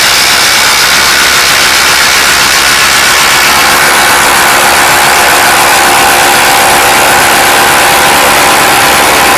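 Two cordless impact drivers, a Cat DX71 18V and a Hercules 20V brushless, hammering together on their top speed while driving 6-inch lag screws into a wooden block. The sound is loud and steady, a continuous rapid impacting with motor whine.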